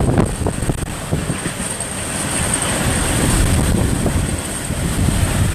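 Hurricane-force eyewall wind of a Category 5 hurricane buffeting a car: a loud, steady rushing noise strongest in the low end, with a few sharp gusts or hits in the first second.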